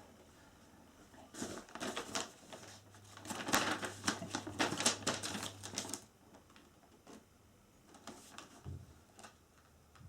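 Rapid light clicks and knocks of flat-pack chair parts being handled and fitted together, a dense run from about a second and a half in until about six seconds, then a few scattered taps.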